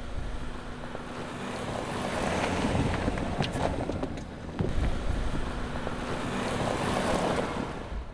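Rushing water spraying against a car's glass and body. It swells twice over a faint steady hum.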